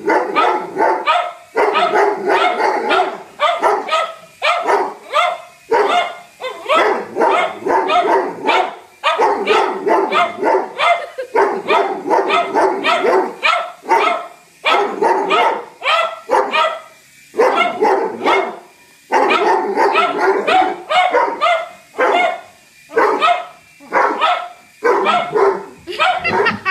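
A Doberman and a cocker spaniel barking loudly at a hovering toy helicopter, in rapid runs of barks broken by short pauses every second or two.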